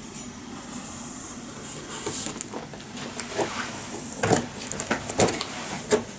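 Cardboard box being handled and cut open: scrapes and a run of sharp clicks and knocks from about two seconds in, the loudest near the end, as a knife works along the packing tape on the box's edge.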